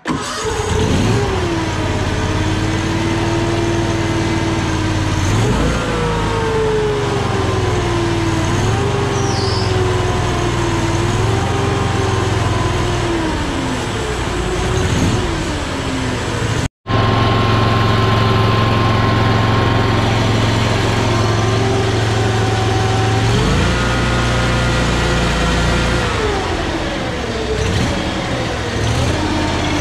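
Kawasaki FH661V 22 hp V-twin engine on a John Deere Z810A zero-turn mower starting right at the outset. It runs with its speed rising and falling several times as the throttle lever is worked, now that the choke and throttle cables are hooked up the right way round.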